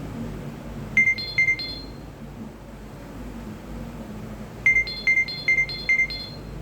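A Nokia 2760 phone's loudspeaker playing a Nokia 6030 ringtone: short, bright, high-pitched beeping notes, a group of three about a second in, then after a pause a quicker run of five near the end.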